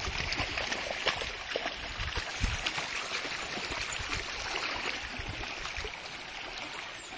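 Shallow stream water running steadily, with scattered small clicks and knocks on top.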